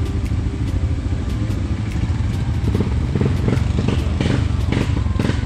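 Quad bike (ATV) engine running steadily under the rider as it rolls along a bumpy dirt trail, with knocks and rattles from the machine that come thicker from about three seconds in.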